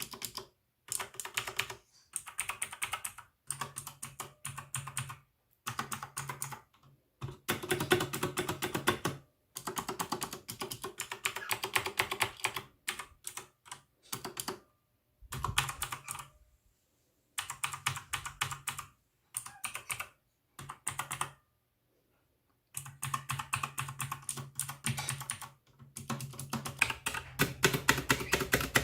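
Typing on a mechanical computer keyboard: runs of rapid key clicks and clacks, broken by short pauses.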